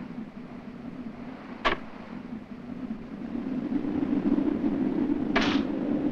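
Storm wind blowing steadily, swelling about four seconds in. Sharp knocks are heard twice, once about two seconds in and once near the end, the second with a short ring.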